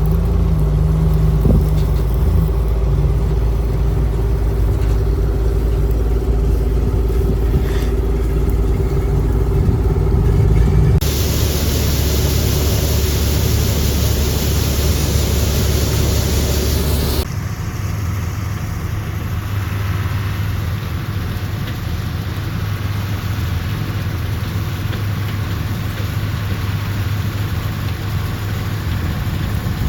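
John Deere 4400 combine running in the field, its engine holding a steady drone with mechanical rattle. The sound changes abruptly about a third of the way in and again a little past halfway, the middle part with a loud even hiss over the engine.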